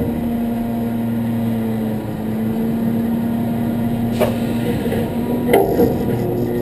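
Heavy truck's diesel engine idling with a steady, even hum, and two short sharp knocks past the middle.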